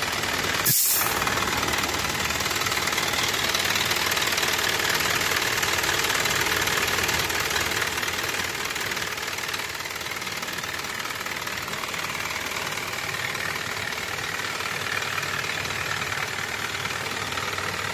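Isuzu 4HK1 four-cylinder turbodiesel idling steadily in an open engine bay, with a short sharp burst of noise about a second in.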